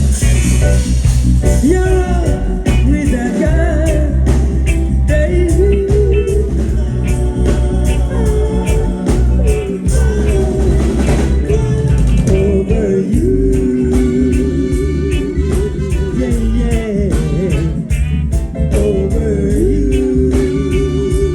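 Live reggae band playing, with heavy bass, a regular drum beat and guitar, and a wavering melody line held over the top.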